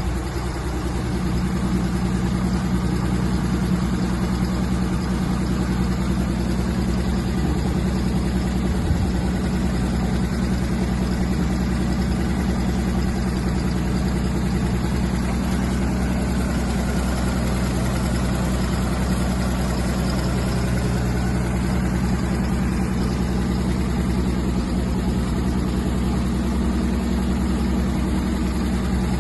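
Military rotor wrecker truck's engine running steadily at constant speed, a low even hum with no revving.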